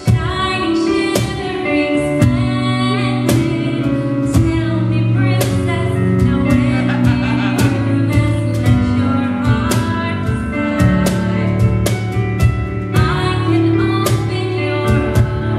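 A woman singing a song over live band accompaniment: sustained chords under the melody and a steady beat of drum hits.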